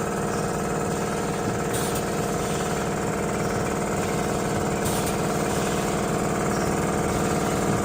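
Steady hum of running factory machinery, several held tones over a fast low rattle, with a faint short hiss about every three seconds.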